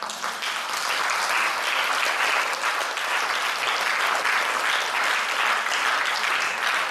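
An audience applauding in a hall: sustained, even clapping from many hands.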